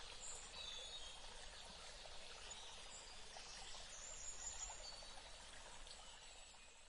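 Faint background hiss with a few brief, faint high tones. It fades out at the very end.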